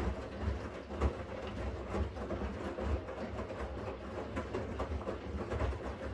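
Siemens washing machine running a wash: the drum turning with a low motor rumble, and irregular dull thumps of laundry and water sloshing inside.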